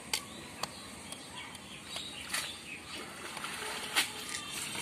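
Small hand net dipped and swept through shallow canal water: a series of irregular splashes and sloshes, the sharpest about four seconds in.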